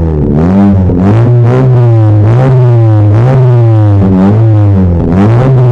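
Honda Civic Turbo's turbocharged four-cylinder revved again and again through an HKS titanium twin-tip centre exhaust, each rev rising quickly and falling away, mixed with electronic music with a heavy bass.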